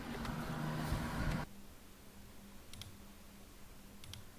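A steady background hum inside the car cuts off abruptly about a second and a half in. Quieter room tone follows, with a few faint, sharp clicks like small plastic parts being handled.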